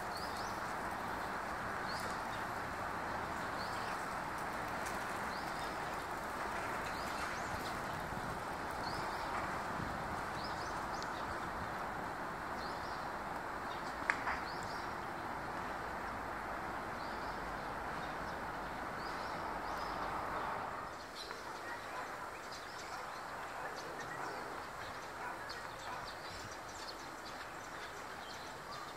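Eurasian tree sparrows chirping: many short, separate chirps, on and off throughout, over a steady background hiss that fades about two-thirds of the way through. A single sharp click about halfway through.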